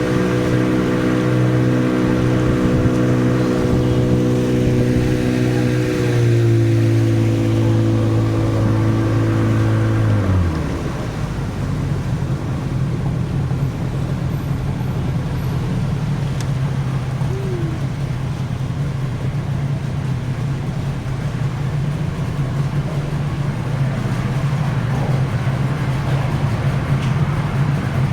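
Tour boat's engine running steadily under way. It drops a little in pitch about six seconds in, then is throttled back just past ten seconds in, its note falling away to a lower, rougher steady rumble.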